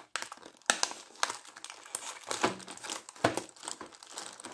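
Clear plastic packaging, a blister tray and a small plastic bag, crinkling and crackling as it is handled, with irregular sharp crackles.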